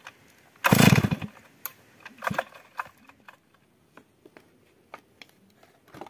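Stihl MS 382 two-stroke chainsaw being pull-started: a loud half-second burst about a second in as the starter rope is pulled, then a weaker one about a second later, and the engine does not keep running, in keeping with the saw's no-start problem.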